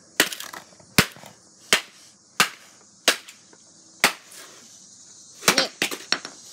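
Repeated sharp hits, about one every 0.7 seconds six times over, then a quick flurry of three or four more near the end: something hard being struck over and over.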